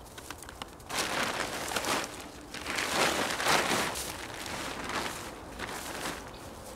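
Tarp rustling as it is picked up and dragged over dry fallen leaves, with the leaf litter rustling underfoot, in a few uneven bursts loudest about three seconds in and quieter after.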